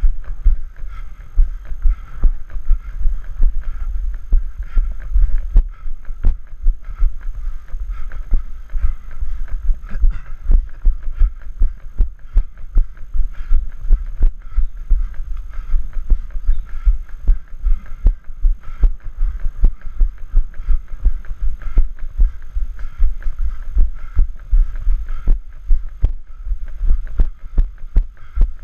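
A trail runner's footfalls on a rocky dirt path, heard as regular low thuds jolting the action camera, about three a second, over a low rumble.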